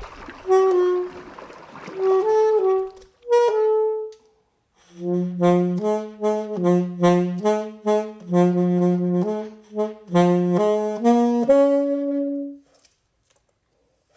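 Background music: a slow melody of held notes on a wind instrument, with a low sustained line joining partway through. It stops shortly before the end.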